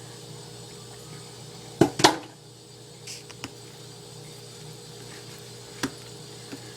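A few sharp knocks and clicks from hands handling a container of bread dough. The two loudest come close together about two seconds in, with fainter ones later, over a steady low hum.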